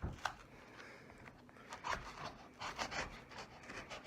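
A dull kiridashi knife blade sawing and scraping through thick parcel packaging. One click near the start, then quick repeated scraping strokes, about four a second, from about halfway in: the blunt blade is dragging rather than slicing.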